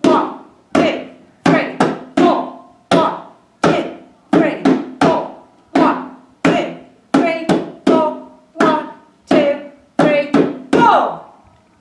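Hand drum struck by hand in a strong, repeating rhythm of sharp hits, about two a second, each ringing briefly with a low tone.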